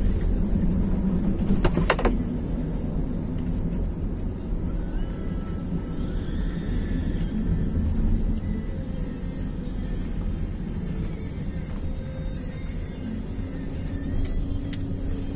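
Steady low rumble of a car's engine and tyres heard from inside the moving car, with a couple of sharp clicks about two seconds in and again near the end.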